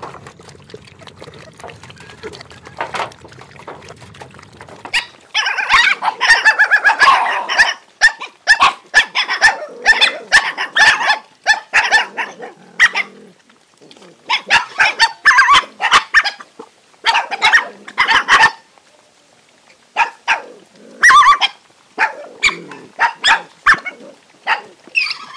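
A pack of dogs barking at each other in repeated loud bursts as they crowd and fight over food. A faint low hum runs under the first five seconds, before the barking starts.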